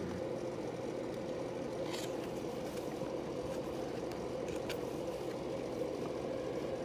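A steady background hum, with a few faint paper rustles and clicks as a page of a picture book is turned by hand.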